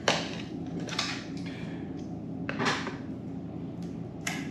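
Light clicks and scrapes of a laptop hard drive being lifted out of its bay in a MacBook Pro and unplugged from its connector cable, with a sharper click near the end.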